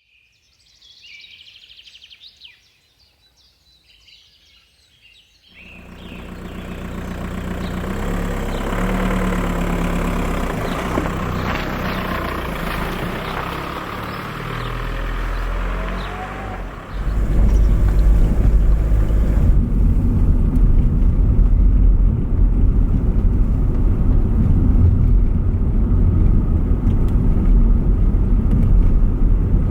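Car running, with engine and road noise; the low rumble steps up much louder about two thirds of the way through. Faint high chirps in the first few seconds.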